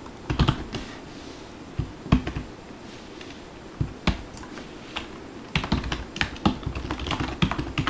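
Typing on a computer keyboard: a few separate keystrokes, then a quicker run of key clicks from about five and a half seconds in.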